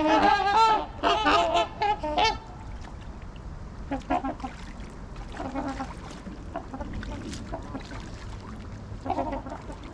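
Waterfowl honking: a burst of loud, overlapping honks for the first two seconds or so, then scattered single honks.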